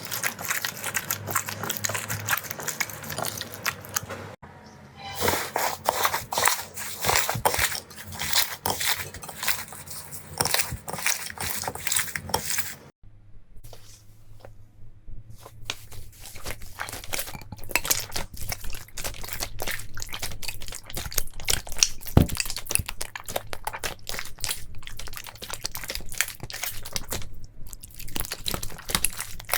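Slime being squeezed and poked by hand, giving a dense run of small crackles and pops. The sound breaks off sharply about four seconds in and again about thirteen seconds in, as one clip cuts to the next.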